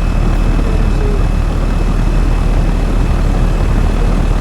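Outdoor air-conditioner condensing unit running steadily close up, its fan and compressor making an even whooshing hum with a faint steady high whine.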